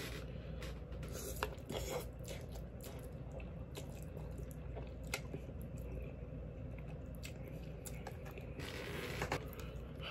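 A person eating hot instant ramen noodles with a fork from a plastic container: chewing and slurping, with small scattered clicks of the fork against the container.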